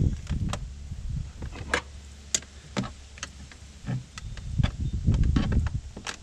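Irregular sharp clicks and light knocks of a Phillips screwdriver backing the screw out of a car's interior door handle, over a low rumble of handling noise.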